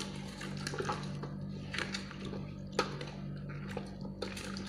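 Silicone spatula stirring sliced unripe papaya in sugar and juice in a stainless steel bowl: wet squishing and scraping, with irregular sharp clicks against the bowl, over a steady low hum.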